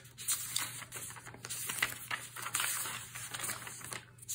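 Paper rustling and crinkling as the pages of a Hobonichi Cousin planner are turned and handled, with a few light taps and clicks.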